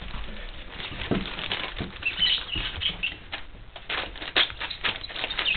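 Four-week-old puppies' paws pattering and scrabbling over newspaper and a blanket, with irregular rustling and clicking of paper.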